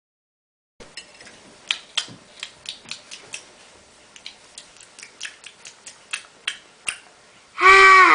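Small dishes and cutlery clinking and tapping against each other in an irregular run of light clicks. Near the end comes a loud pitched cry that slides down in pitch.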